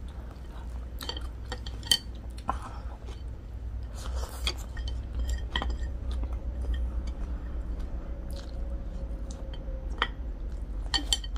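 People chewing food, with scattered clicks and clinks of chopsticks and utensils against plates, over a low steady hum.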